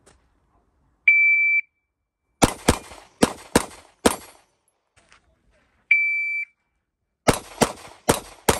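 Electronic shot timer beeps once, then a 9mm pistol fires five quick shots in a string. A second timer beep starts another rapid string of four shots near the end.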